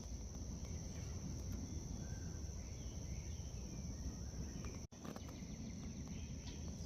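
Outdoor ambience: insects trilling steadily at a high pitch, with a few faint bird chirps and a low rumble like wind on the microphone. The sound drops out for an instant just under five seconds in.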